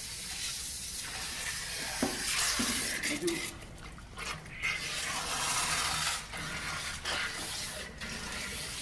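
Water from a hose rushing and splashing as the hose is pushed into a car wash pit's drain pipe, flushing the line through to the reclaim pit to clear mud and check for blockages. A short knock about two seconds in.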